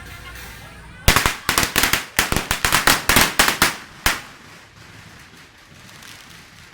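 A string of firecrackers going off: a rapid, uneven run of sharp bangs starting about a second in and lasting about three seconds, ending with one last separate bang.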